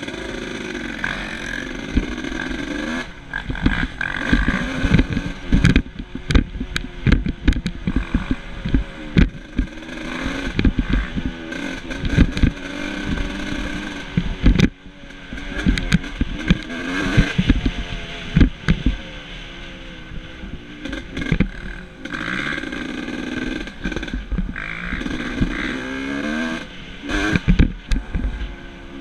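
1989 Yamaha YZ250WR's single-cylinder two-stroke engine running steadily for a few seconds, then revving up and down as the bike is ridden hard. Frequent sharp knocks and thumps from the bike running over bumps come through all the while.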